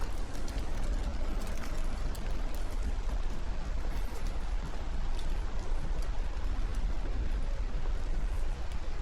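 Outdoor ambience in light rain: a steady low rumble with scattered ticks and drips of rain.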